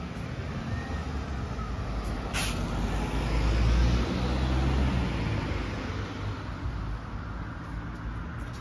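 A large road vehicle's engine passing close by: a low rumble that swells to its loudest about four seconds in and then fades, with one brief sharp sound about two and a half seconds in.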